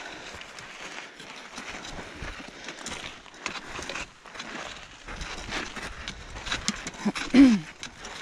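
Hikers' footsteps crunching on loose volcanic gravel and trekking-pole tips clicking on rock during a steep climb. A short grunt falling in pitch comes near the end and is the loudest sound.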